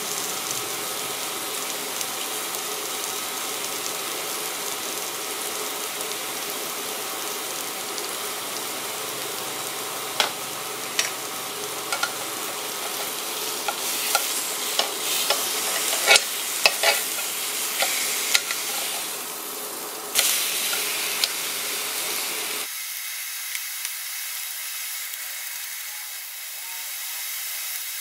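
T-bone steak sizzling steadily in a cast-iron grill pan. Midway, metal tongs click and scrape against the pan several times as the steak is lifted and turned.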